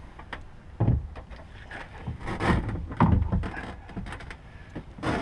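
Hard knocks and scraping as a fish-finder battery in its small case is worked into a holder on a plastic kayak, several bumps spread through the few seconds.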